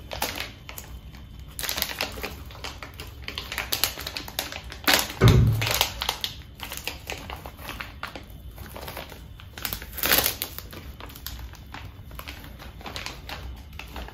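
Plastic packaging of a pack of Purell sanitizing wipes being handled and opened by hand: crinkling and small clicks throughout, a louder thump about five seconds in, and a louder rustling burst around ten seconds in.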